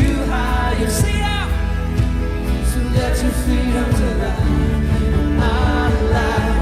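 Worship band playing a song, with drums, bass and a singing voice.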